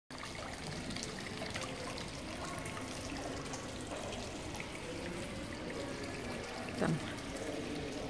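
Small onyx pedestal fountain bubbling and trickling steadily into a shallow tiled pool.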